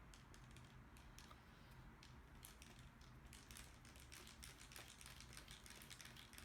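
Faint scattered clicks and light taps of a laptop's plastic screen frame and parts being handled and fitted together. The clicks come thicker from about two seconds in.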